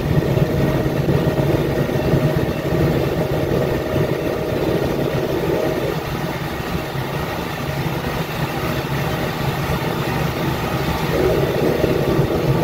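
New Holland TS6020 tractor's diesel engine running steadily under load while pulling a corn planter through the field.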